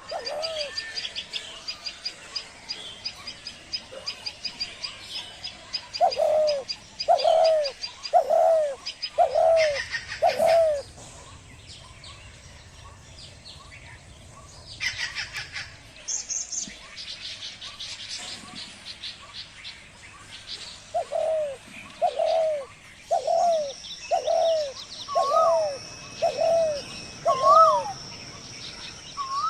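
A dove cooing in runs of short, repeated, arched notes about a second apart, with a chorus of small birds chirping and twittering high above it. A thin steady high tone comes in for the last several seconds.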